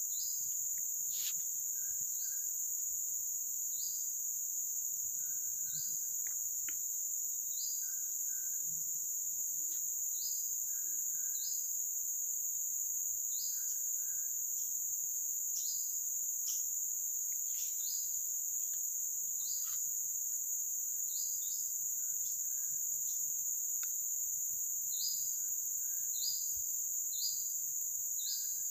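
A steady, high-pitched insect chorus of the forest, with short upward chirps repeating every second or two and a few sharp clicks.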